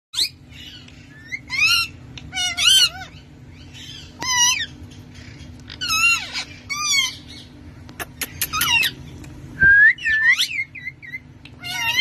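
Indian ringneck parrots (rose-ringed parakeets) giving short, harsh, screeching calls over and over, about one a second, with a few rising whistled notes about ten seconds in.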